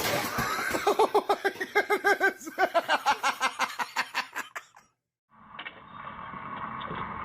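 Rapid, rhythmic laughter, about four to five short rising-and-falling 'ha' pulses a second for several seconds, then an abrupt cut to a steady background hum.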